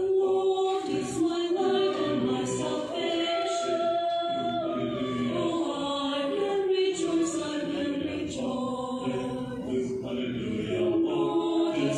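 Mixed choir of men's and women's voices singing a cappella in harmony, the parts holding long, sustained notes.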